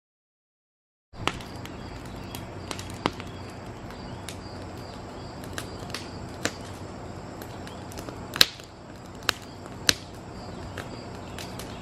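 Silence for about the first second, then a wood fire burning in a steel fire pit, crackling with sharp pops at irregular intervals, the loudest about eight seconds in.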